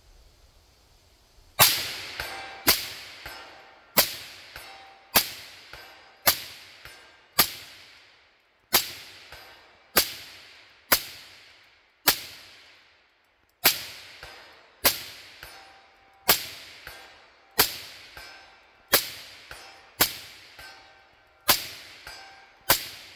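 Suppressed .308 semi-automatic rifle with a Silencerco Omega 36M suppressor firing slow, steady single shots, about one a second, some eighteen in all, starting about a second and a half in. Each shot is a sharp crack that trails off.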